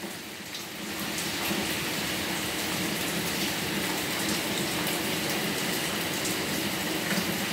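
Steady rain falling, an even hiss of water without breaks; it grows a little louder about a second in.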